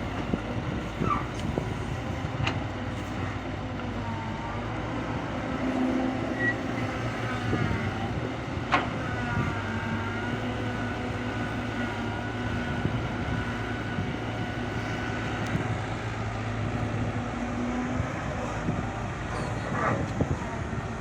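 Kobelco SK120-5 excavator working: its diesel engine runs steadily under load with a whine from the hydraulics that dips and shifts in pitch, and a few sharp knocks of the bucket and boom.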